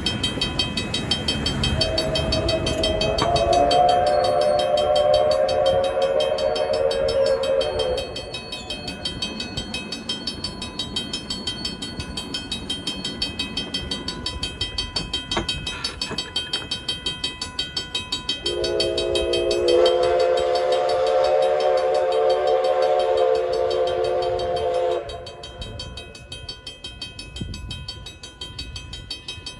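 Steam locomotive whistle sounding two long blasts, each about six seconds, with the locomotive bell ringing steadily throughout.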